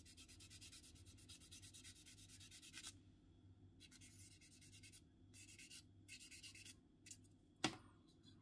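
Faint, quick back-and-forth strokes of a sanding stick on a clear plastic model canopy, smoothing down its centre seam line. The strokes run steadily for about three seconds, then come in shorter bursts with pauses, and a single sharp click sounds near the end.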